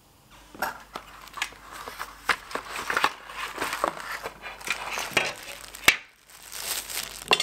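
Unpacking an IKEA Kungsfors stainless-steel rail: cardboard packaging scraping and rustling as the rail slides out of its box, plastic wrapping crinkling, and light metal clinks, with one sharp clack near the end.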